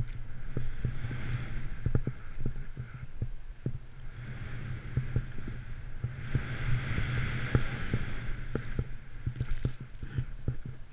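Riding through deep powder snow: the hiss of snow spraying under the rider swells and fades with the turns, loudest through the second half. Underneath is a steady low rumble with irregular small knocks.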